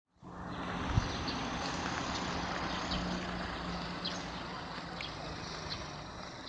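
A steady low engine hum, like a vehicle idling, fades in with outdoor background noise, with a single thump about a second in and scattered short high chirps.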